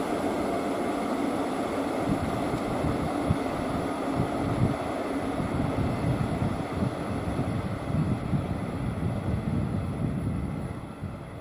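Train rumbling past and moving away, with wind buffeting the microphone; the rumble dies away near the end.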